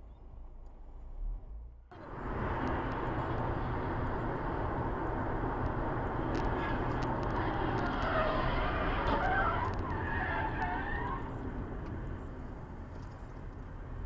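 Steady road and engine noise of a car driving at highway speed, heard from inside the cabin, starting abruptly about two seconds in. In the middle comes a wavering, high tyre squeal from a car skidding across the lanes ahead.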